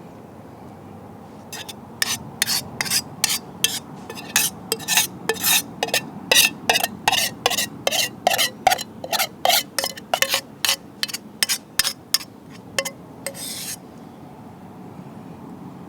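A utensil stirring and scraping inside an aluminium camping pot: a quick run of short scrapes, two to three a second, with a faint metallic ring. It starts about a second and a half in and stops shortly before the end.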